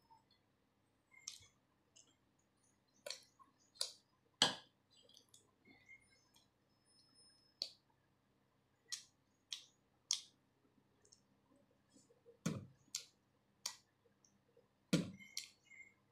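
Eating by hand from a steel plate: faint, scattered clicks and light clinks, about a dozen and unevenly spaced, as fingers pick at fish and bhakri. Two heavier knocks come in the last few seconds.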